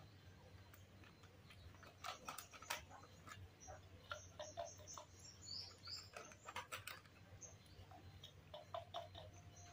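Faint, scattered light clicks and crinkles from a foil milk-powder packet and a small plastic bottle being handled while milk is prepared, with a few short high chirps in between.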